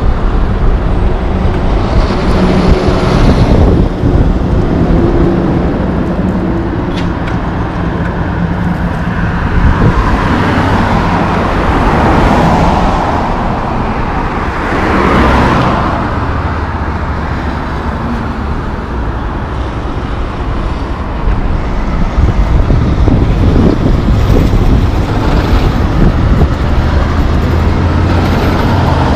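Road traffic passing close: a loaded Kenworth log truck's diesel engine runs steadily as it approaches and goes by, cars whoosh past in the middle, and another loaded log truck's diesel engine rises near the end.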